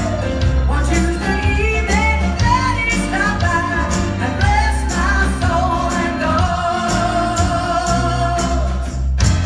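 Live song with singers over a band of bass and drums, building to a long held sung note and ending on a sharp final band hit just before the end.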